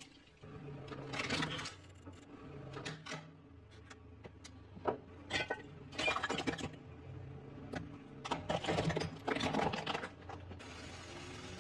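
A car tyre rolling over and crushing small brittle objects: a run of sharp crunches and cracks in several separate clusters, over a low steady hum.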